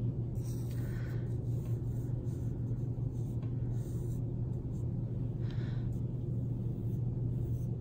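Graphite pencil lightly sketching on drawing paper: soft scratching strokes, two of them stronger about a second in and past the middle, over a steady low hum.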